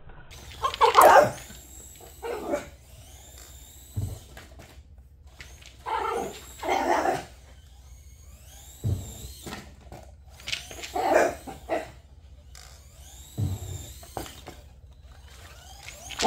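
A dog barking in short separate bouts every few seconds, over a faint steady low hum.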